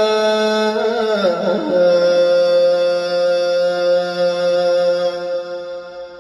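Quran recitation: a reciter draws out the final vowel of the phrase "wa kaffalaha Zakariyya" in one long melodic note. The note wavers in pitch for about the first second and a half, then is held steady, and it fades near the end.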